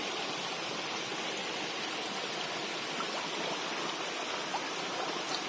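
Small forest stream running over rocks: a steady rush of water.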